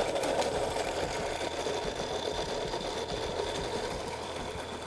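BORK B800 blender running on its smoothie program, its blades churning fruit, coconut milk and ice in the jar: a steady, dense whir that eases slightly as the mix smooths out, with a faint high whine coming in about halfway.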